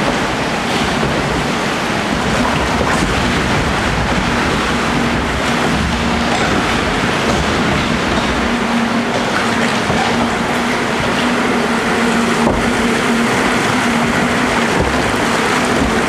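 Steady rushing of water around a log flume boat moving along its channel. A steady low hum joins about halfway through and runs almost to the end.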